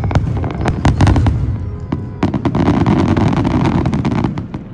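Aerial firework shells bursting in a quick series of sharp bangs, then, about two seconds in, a dense crackling of many small pops from the spreading stars that fades away near the end.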